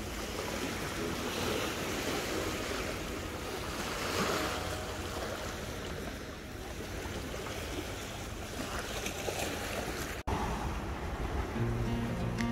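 Sea water washing against the shore in small waves, with wind rumbling on the microphone. Music comes back in near the end.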